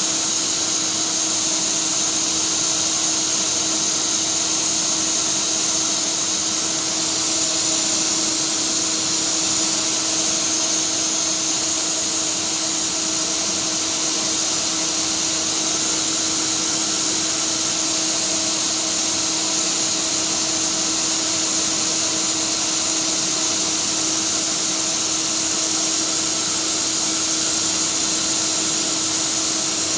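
Flexicam CNC router running steadily under power: a constant hum with a high whine, with no change in pitch or level.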